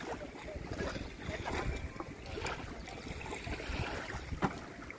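Wind on the microphone and small waves lapping at the shoreline, with a few faint knocks, the sharpest about four and a half seconds in.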